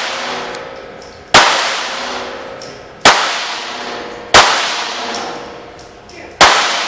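Semi-automatic pistol fired four times, one to two seconds apart, each shot followed by a long ringing echo off the block walls and concrete floor of an indoor range.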